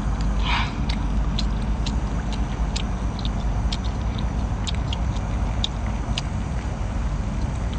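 A person chewing a mouthful of plain boiled squid, which is very chewy: scattered wet mouth clicks and smacks over a steady low rumble, with a brief louder mouth sound about half a second in.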